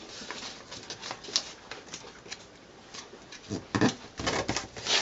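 Sheet of paper being folded and creased by hand: a run of crinkles and rustles, loudest in a cluster near the end.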